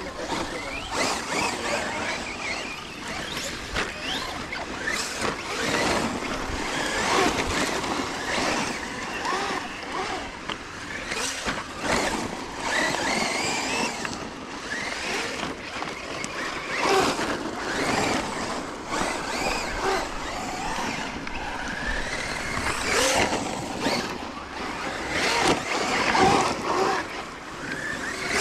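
Electric Traxxas RC trucks running on dirt and gravel: motor whine rising and falling in pitch as they accelerate and brake, with tyres spraying rocks and scrabbling over loose ground.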